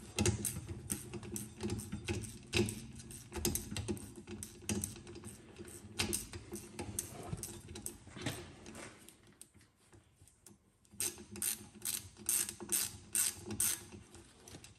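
Socket ratchet clicking as a Torx T30 bolt holding a car's drum-brake wheel cylinder is worked loose, the clicks pausing about two-thirds in, then resuming at about three a second.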